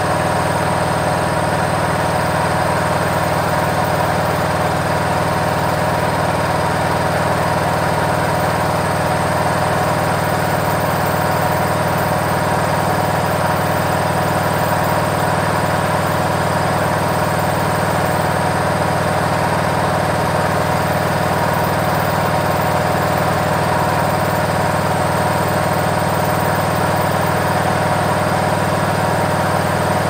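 Indesit front-loading washing machine on its spin cycle, the drum spinning at a constant speed: a steady, loud hum with a high whine over it, unchanging throughout.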